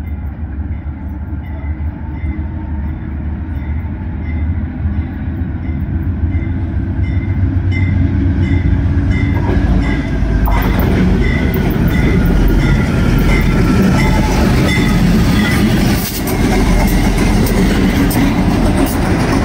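CSX track-geometry train's diesel locomotives approaching and running past. The engine rumble grows steadily louder over about the first ten seconds, then stays loud as the locomotives and wheels go by close with rail clatter.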